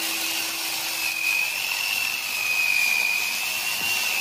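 Electric angle grinder with an 11.5-inch chainsaw attachment running under load, its chain cutting through a log: a steady high motor whine, wavering slightly in pitch, over the rasp of the chain in the wood.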